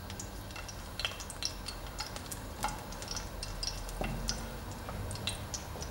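Garlic cloves frying in olive oil in a pan, with scattered light crackles and pops, while a wooden fork stirs them and clicks against the pan.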